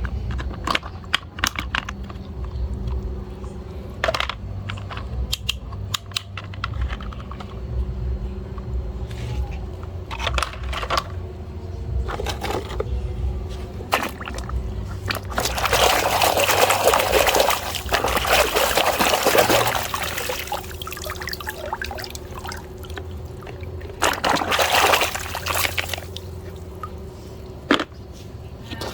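Water running in two spells, a long one in the middle and a short one near the end, while toys are washed, with scattered clicks and knocks of the toys being handled.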